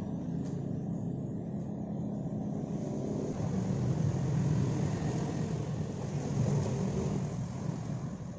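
A motor vehicle engine running with a low, steady rumble.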